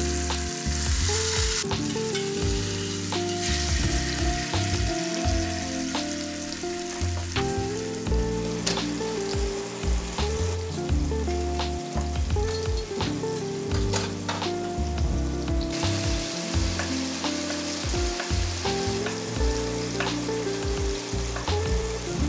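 Beef short rib sizzling as it browns in hot oil in a stainless steel pot, a steady hiss with scattered crackles and spits, louder in the first couple of seconds and again near the end. Background music plays underneath.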